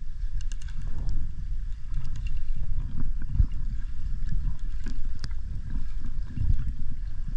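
Muffled underwater rumble of water moving against a submerged camera as a freediver swims over the seabed, with scattered light clicks.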